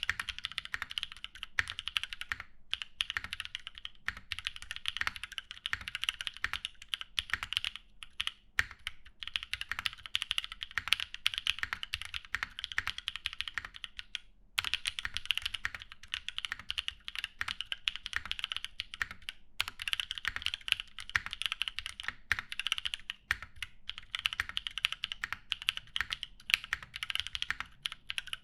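Steady fast typing on an Equalz One mechanical keyboard with lubed Drop Holy Panda tactile switches in a polycarbonate plate and GMK doubleshot ABS keycaps. The keystrokes run as a dense stream of clacks and stop briefly a few times.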